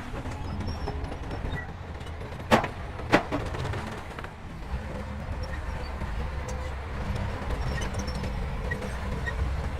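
Heavy diesel earthmoving machinery running with a steady low rumble, cut by two sharp knocks about half a second apart, two and a half seconds in.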